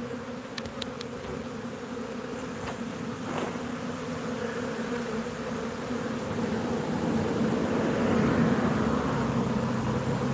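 A honeybee swarm buzzing: a mass of bees flying and crawling around the entrance of a swarm box, growing louder about two-thirds of the way in. The swarm is unsettled and still searching, which the beekeeper takes as a sign that the queen is not in the box.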